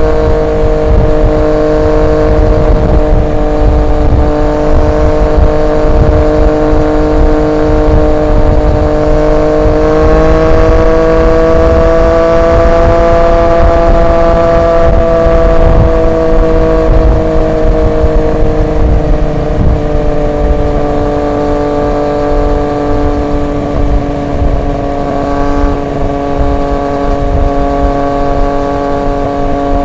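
Triumph Street Triple 765 RX's three-cylinder engine through an SC Project S1 exhaust, running at a steady cruise. The engine note rises slightly about a third of the way in, then eases gradually down, over a low wind rumble.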